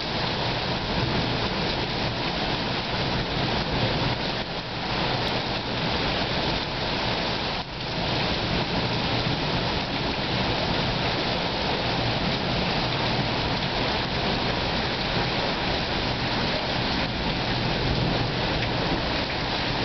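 Storm rain falling steadily, an even hiss that keeps on without let-up.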